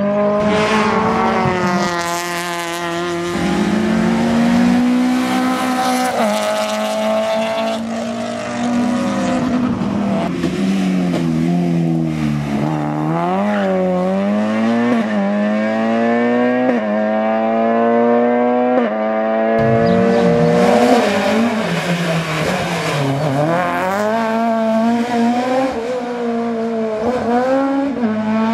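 Rally car engines at full throttle, the note climbing and dropping over and over through gear changes and braking.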